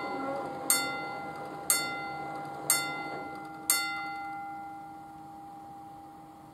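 Level-crossing bell ringing about once a second, four strikes each with a ringing tail, then falling silent about four seconds in as the barrier booms come fully down. A faint steady hum runs underneath.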